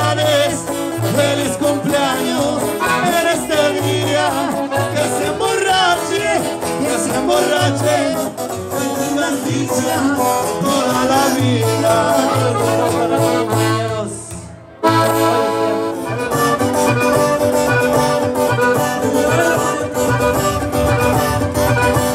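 Norteño-style band music, with an accordion leading over guitar and a singer. The music fades away about two-thirds of the way through, then cuts back in abruptly.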